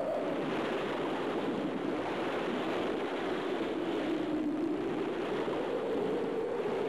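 Wind howling: a steady rushing with a hollow tone that slowly sinks in pitch and then rises again near the end.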